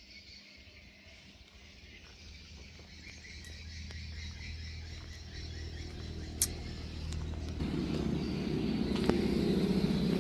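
Insects chirring steadily, under a low rumble that grows steadily louder from a few seconds in and is loudest near the end. A single sharp click comes about six seconds in.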